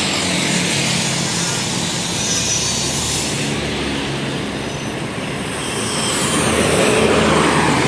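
Roadside traffic: engine and tyre noise of passing vehicles, swelling near the end as a large vehicle goes by. No telolet horn is sounding.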